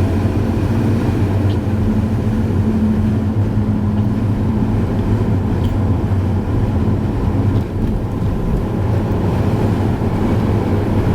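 Steady road and engine noise inside a moving car, a constant low drone with a faint hum.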